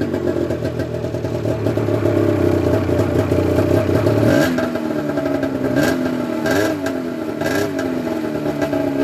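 Polaris Dragon snowmobile's two-stroke engine just started and running at a steady fast idle, then dropping in pitch about four seconds in and revved in three short throttle blips.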